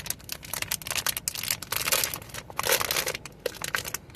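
Blind-box packaging wrapper crinkling and tearing as it is pulled open, in a string of irregular crackles, busiest in the middle.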